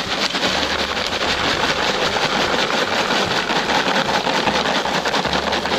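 Microwave oven running with a bag of microwave popcorn popping inside: a dense, fast crackle of pops over the oven's low hum.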